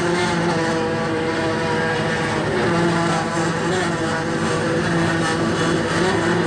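A fishing boat's engine running with a steady drone, with deck noise of the net being hauled in over it.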